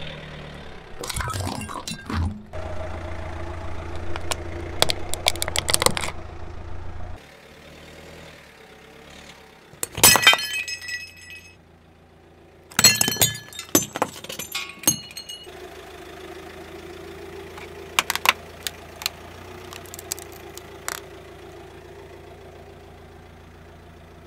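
A car tyre rolling over brittle ceramic objects and crushing them, in a series of sharp cracks and shattering breaks. The loudest breaks come about ten and thirteen seconds in, some ringing briefly. A low engine hum runs under the first several seconds.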